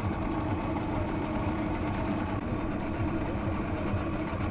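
Motorboat engine idling, a steady drone with a low rumble while the boat is manoeuvred at low speed.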